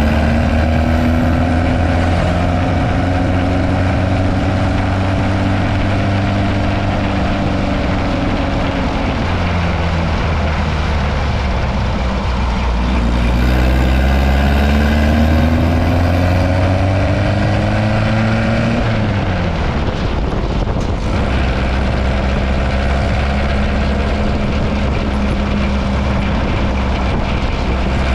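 Dune buggy engine running as the buggy drives, its pitch sinking over the first several seconds, climbing again around the middle, then dropping sharply about two-thirds of the way through and holding steady, with road noise underneath.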